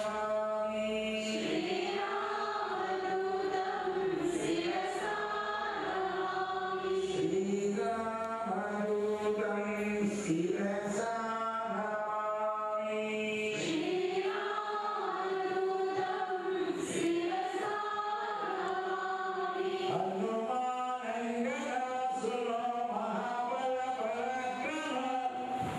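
Hindu devotional chanting sung by a group of voices, a continuous melodic chant in flowing phrases.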